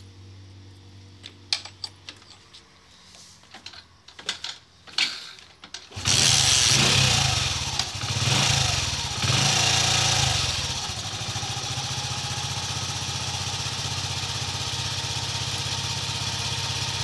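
A few sharp clicks as the wiring is handled, then about six seconds in a Hero Passion Pro i3s motorcycle's single-cylinder four-stroke engine starts, is revved up twice and settles into a steady idle.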